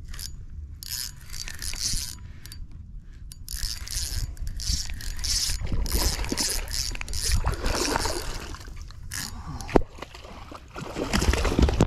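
Spinning reel cranked in quick, repeated turns while a hooked fish splashes at the surface, with a sharp click near the end. Wind rumbles on the microphone throughout.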